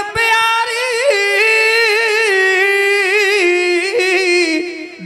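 Kavishri singers, a Sikh folk-poetry jatha, holding one long sung note without instruments. The note wavers and slowly sinks in pitch, then breaks off just before the next line.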